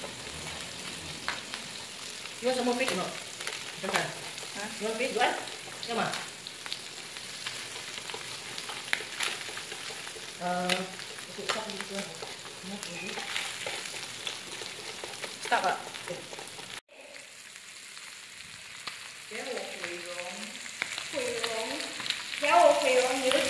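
Meat and fish sizzling on an electric tabletop grill plate, a steady frying hiss.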